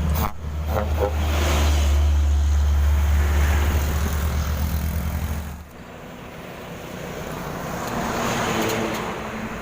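A truck engine running steadily close by, a strong low drone that cuts off abruptly about six seconds in. After that a vehicle passes with road noise, loudest near the end.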